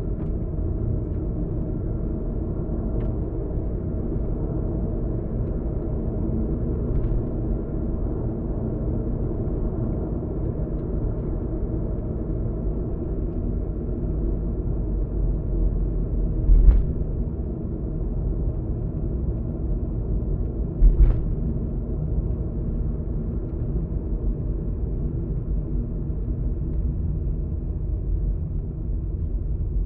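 Steady low rumble of a car driving at speed, tyre and road noise heard from inside the cabin. Two brief thumps stand out, a bit past halfway through and again about four seconds later.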